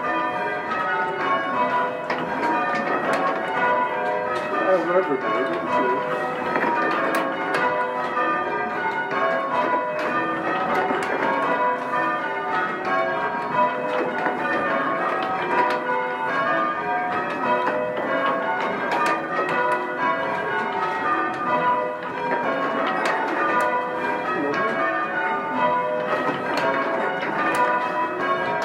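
A ring of six church bells being change rung full-circle, the bells striking one after another in a continuous stream with their tones ringing over each other.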